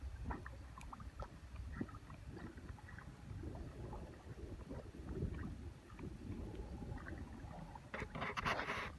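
A Boykin spaniel swimming in a pond, with faint sloshing and paddling sounds over a low wind rumble on the microphone. A brief, louder rush of noise comes near the end.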